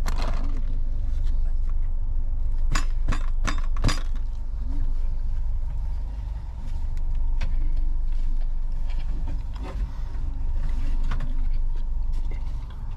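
Steady low rumble and faint hum inside a sleeper train carriage. A quick run of four or five sharp clicks comes about three seconds in, and fainter clicks follow later.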